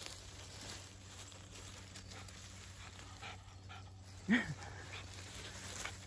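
A terrier rummaging and sniffing in grass and undergrowth, with one short whine from a dog about four seconds in that rises then falls in pitch.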